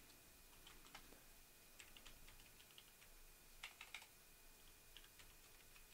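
Faint keystrokes on a computer keyboard, a few small runs of quick clicks with short pauses between them.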